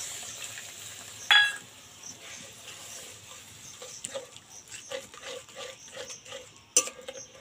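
Spatula stirring and scraping wet spiced masala in a karahi, a string of soft scrapes. A brief, loud, ringing sound comes about a second in, and there is a sharp knock near the end.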